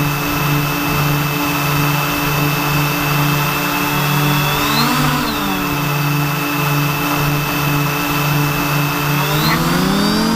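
Multicopter's electric motors and propellers humming steadily in flight. The pitch swells briefly about halfway through and rises again near the end as the throttle changes.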